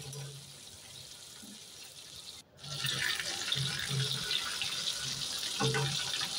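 Rohu fish steaks sizzling as they shallow-fry in hot oil in a steel kadhai. The sizzle is quieter at first, then after a brief break about two and a half seconds in it turns much louder and crackly.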